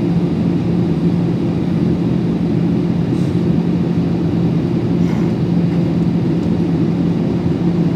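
Steady cabin noise inside a Boeing 737 airliner: the jet engines and the rush of air, a constant low hum with no change in pitch.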